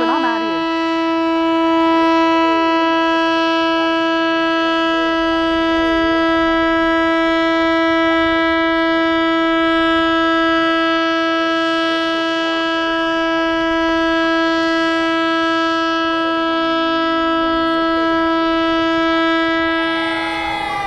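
A dam's warning horn sounding one long, steady tone during a floodgate release, cutting off near the end.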